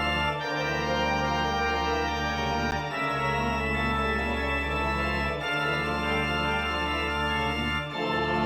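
Organ playing slow, sustained chords over a held bass, changing chord about every two and a half seconds.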